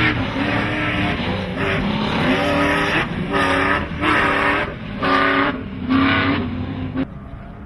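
Off-road race truck engine revving in repeated short surges, about one a second, each rising in pitch as the throttle goes on and off again; the sound cuts off abruptly near the end.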